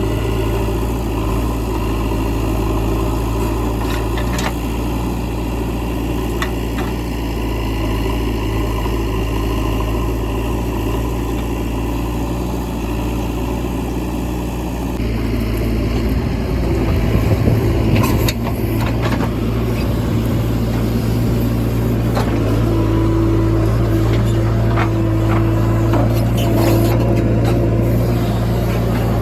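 JCB 3DX Eco backhoe loader's diesel engine running steadily while working. About halfway through it grows louder, with a few short knocks.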